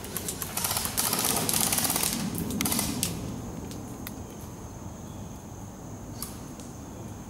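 Airsoft rifle firing rapid full-auto bursts, a fast run of clicks in the first three seconds, then stopping.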